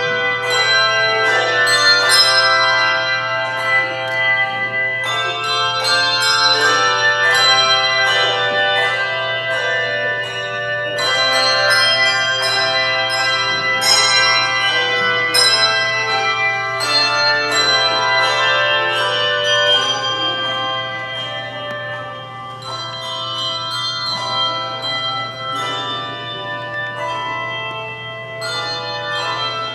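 Handbell choir playing a piece: many bells struck in chords and runs, their notes ringing on and overlapping. The playing softens about two-thirds of the way through, then builds again, over a steady low hum.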